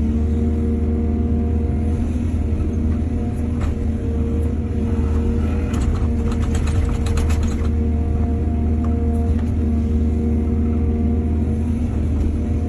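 Excavator's diesel engine running steadily with a deep drone, with a spell of metallic clattering about six to seven and a half seconds in.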